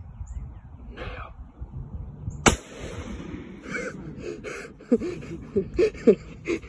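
A single loud, sharp shot at a wild turkey about two and a half seconds in, followed by a run of short scuffing knocks and a few brief calls.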